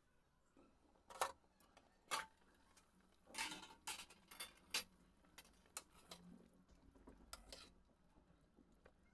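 Metal ladle knocking and scraping against a metal cooking pan while stirring a liquid curry: a series of sharp clinks, mostly a second or less apart, with a short splash of liquid about three and a half seconds in.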